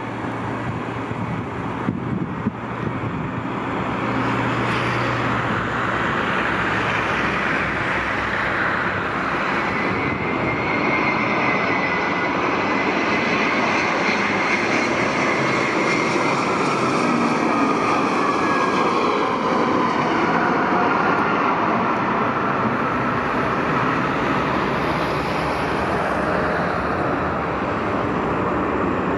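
Airplane engines passing close by: a loud, steady rush of engine noise that swells about four seconds in, with faint whining tones sliding slowly down in pitch as it goes.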